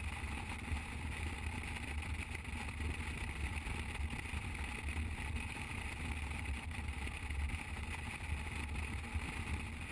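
Motorcycle engine running steadily at highway cruising speed, with a low, even rumble and a constant rush of wind and road noise.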